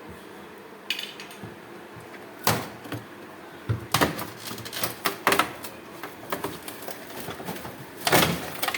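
A series of irregular sharp clicks and knocks, like hard parts being handled, with a louder cluster near the end.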